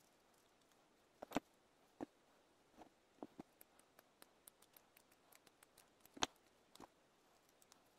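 Light clicks and knocks of a small wooden block and plastic parts being handled and set down on a wooden tabletop. Two louder knocks, one about a second in and one just after six seconds, with scattered faint ticks between.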